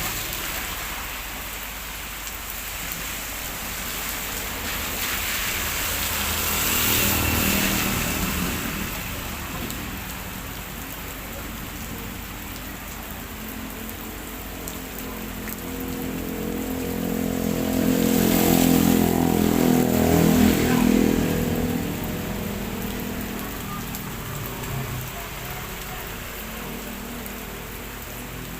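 Heavy rain falling steadily. A vehicle passes about a quarter of the way in, and a louder one with its engine plainly heard swells and fades about two-thirds of the way through, tyres hissing on the wet road.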